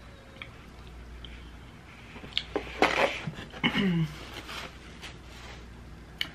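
A paper napkin rustling as a woman wipes her mouth and hands about three seconds in, with a short falling hum of her voice; otherwise a low steady room hum.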